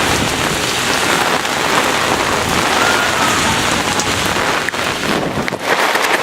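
Heavy rain pouring down and pattering on an umbrella in a severe thunderstorm, with gusty wind rumbling on the microphone that drops away about five seconds in.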